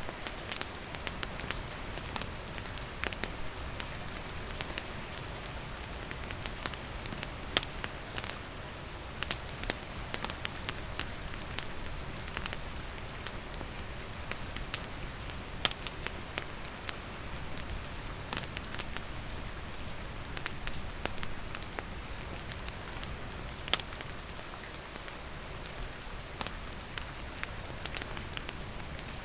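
Steady rain falling, with a campfire crackling: many scattered sharp pops and snaps over the constant hiss, a few louder ones now and then.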